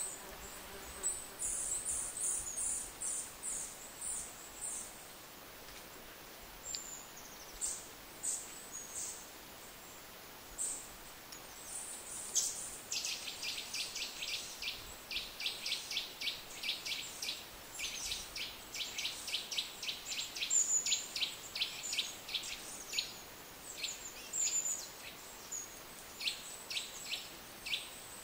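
Small songbirds calling: thin, very high chirps at first, then from about halfway a fast run of sharp, short calls repeated about three or four times a second, stopping and starting again near the end.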